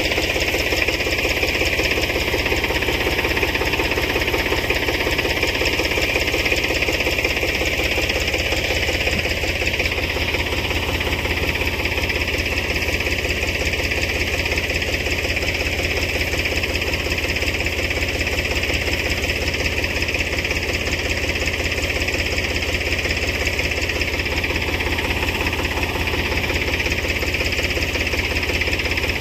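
Tractor engine running steadily at constant speed, driving a tractor-mounted crop sprayer's pump while spraying is under way.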